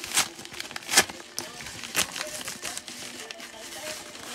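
Cardboard mailer being torn open and handled, with crinkling packaging and a few sharp cracks, the loudest about a second in, as a plastic-wrapped DVD case is pulled out.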